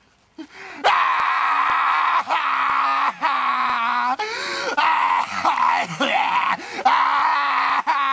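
A grown man imitating a baby, crying and wailing loudly on one steady pitch in long held cries with short breaks for breath, starting about a second in.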